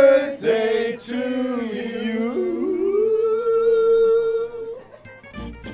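A woman singing wordlessly and exuberantly, her voice gliding up and down and then holding one long steady note for nearly two seconds.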